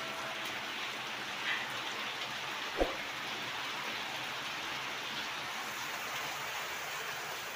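Steady rain hissing throughout, with one short thump a little under three seconds in.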